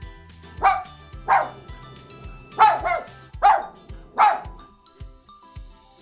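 A puppy barking six short, high barks in quick groups over background music with a steady beat.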